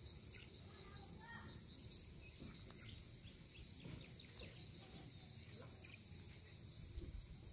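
Insects chirping steadily, faint: a continuous high buzz with a pulsed chirp about five times a second, over a low outdoor rumble.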